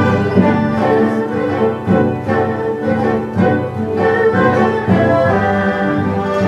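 Chinese traditional orchestra playing, with the erhu section bowing a melody over the full ensemble.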